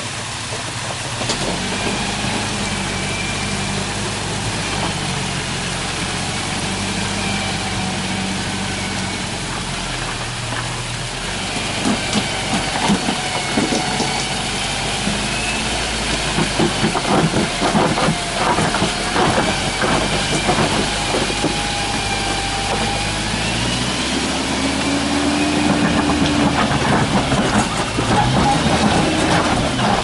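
Lifted first-generation Toyota 4Runner's engine running under load as it crawls up a rock ledge, its pitch rising and falling with the throttle, most strongly in the second half. A run of knocks in the middle of the climb, over a steady hiss.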